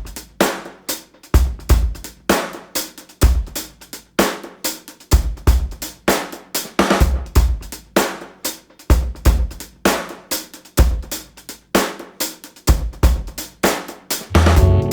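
Music with a drum kit playing a steady beat alone: kick drum, snare and cymbals. Bass and other instruments come in about a second before the end.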